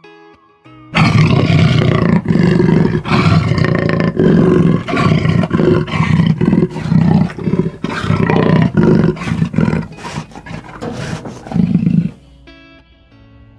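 Jaguar calling: a long, rapid run of deep, rough roaring grunts that starts about a second in and stops near the end.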